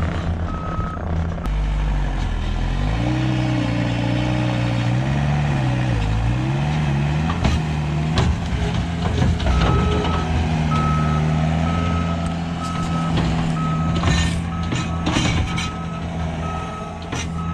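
Manitou skid steer's engine running under working load, its pitch rising and falling as the machine pushes, with a backup alarm beeping at the start and again steadily from about halfway on as it reverses. Several knocks and clatters from the bucket and machine near the middle and late on.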